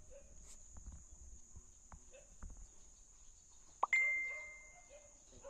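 Faint clopping of a pony's hooves on a concrete road, then about four seconds in a single sharp metallic clink that rings on and fades over about a second, over a steady high insect drone.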